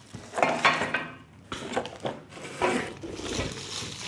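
Plastic packaging crinkling and rustling in several irregular bursts as plastic-wrapped metal parts of a dish drying rack are handled and pulled from a cardboard box.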